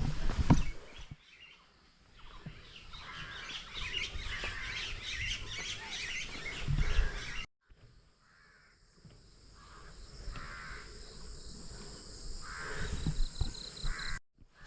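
Outdoor birdsong: many small birds chirping busily, broken off by a sudden cut about halfway. After the cut, crows caw repeatedly, about one call a second.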